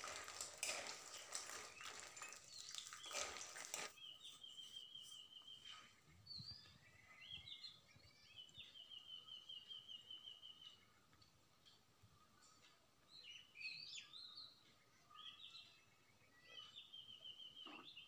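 Urad dal badi frying in hot mustard oil in a kadhai, crackling and sizzling for about four seconds before cutting off suddenly. After that come faint bird calls: a rapid trill at one high pitch, heard three times, with scattered chirps in between.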